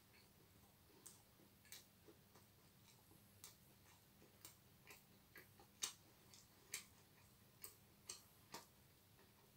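Quiet chewing of a mouthful of cheeseburger: a string of short, soft wet mouth clicks roughly twice a second at uneven spacing, one a little past halfway louder than the rest.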